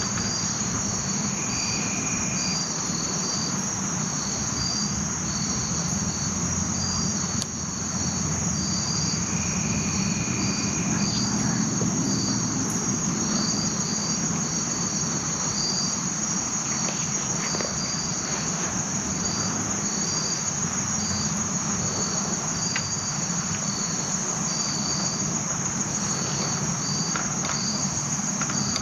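Insect chorus of crickets and similar insects: a steady high-pitched buzz with a short chirp repeating over it. Twice a lower single-pitched note sounds for about a second, once early and once around ten seconds in, over a faint low rumble.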